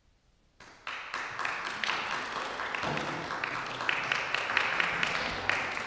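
Audience applause for a cello ensemble's finished piece, breaking out suddenly after about half a second of near silence and going on as steady, dense clapping.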